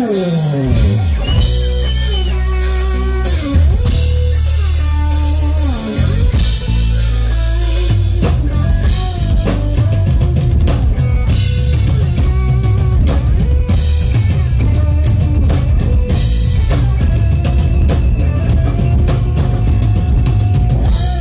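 Rock music with drums and guitar. It gets fuller and heavier with a steady drum beat about eight seconds in.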